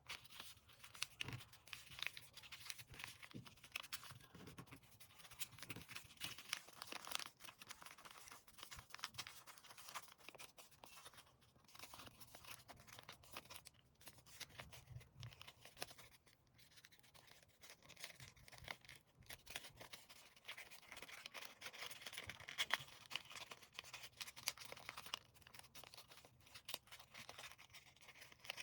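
Faint, close rustling and crackling of a sheet of paper being handled, folded and creased by hand, with many small crisp clicks throughout.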